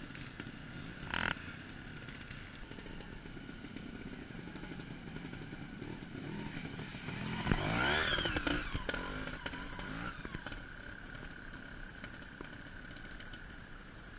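Trials motorcycle engine revving as the bike climbs a leaf-covered bank, rising and falling in pitch and loudest about halfway through as it passes close. A bike engine runs steadily throughout, with one short sharp knock about a second in.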